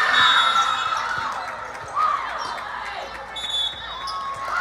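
Sounds of an indoor volleyball game echoing in a gym: short high-pitched squeaks and calls at the start, about two seconds in and at the end, over steady hall noise.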